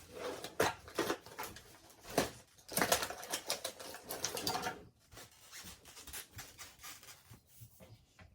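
Quick clattering and clicking of small hard objects, a screwdriver and plastic computer parts being handled, densest about three to five seconds in, then thinning to scattered light ticks.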